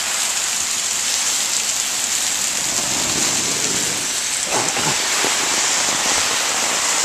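Heavy downpour, a cloudburst of rain pouring onto a wet street and plants as a steady dense hiss. A car's tyres swish past on the wet road about four seconds in.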